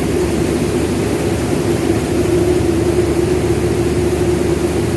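Rice milling machinery running steadily: a loud, even mechanical drone with a constant hum.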